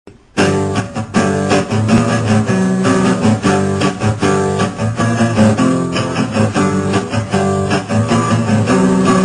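Instrumental guitar intro of a ringtone song, starting suddenly out of silence about half a second in and then playing on at a steady loudness.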